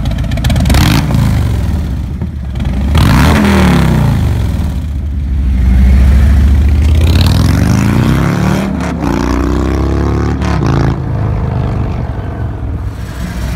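Harley-Davidson 2017 Street Glide's Milwaukee-Eight V-twin running through a prototype set of SVT Boneshakers exhaust. It is revved hard several times, the pitch climbing and falling with each rev, with a deep, loud exhaust note.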